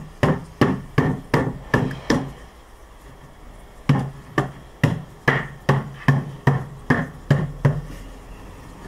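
Steady, even knocks on wooden beehive panels, about two or three a second, as the slotted panels are tapped home with a cloth-covered rubber mallet. There are two runs of knocks with a short pause between them: about six in the first run and about ten in the second.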